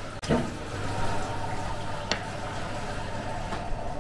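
Gas burner flame in a traditional brick bread oven, burning with a steady rushing hiss over a low hum. A single sharp tap comes about two seconds in.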